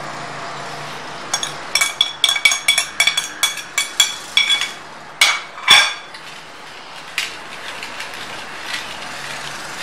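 Quick clinking with a ringing tone, about five clicks a second for some three seconds, then two louder knocks: a ceramic plate and lasooras clinking against a glazed clay pot as the fruit is tipped in.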